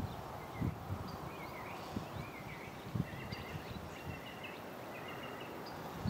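Birds chirping in short repeated notes over steady outdoor background noise, with a few soft low thumps of wind on the microphone.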